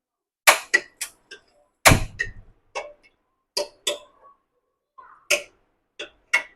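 A spoon knocking and scraping against a pressure cooker while stirring spinach into meat gravy: about a dozen sharp, irregular clinks.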